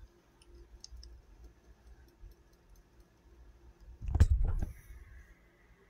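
HPC key punch machine cutting a GM B86 key blank. A few light clicks come first as the machine is set, then the punch comes down with one heavy clunk about four seconds in, notching a depth-3 cut.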